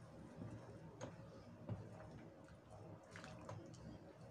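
Faint liquid sloshing with scattered soft taps: a plastic ladle stirring tofu into a pot of simmering soup.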